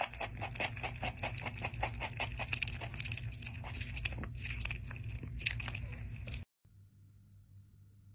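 A cat chewing crunchy food right at the microphone, in quick, even crunches about three or four a second. The crunching stops abruptly a little over six seconds in.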